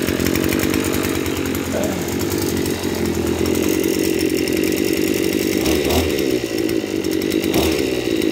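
Maruyama BIGM AC265STD brush cutter's 26 cc engine running steadily, with two brief knocks near the end.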